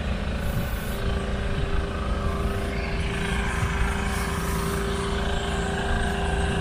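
An engine running steadily nearby, a constant drone with a higher hum that sets in about a second in.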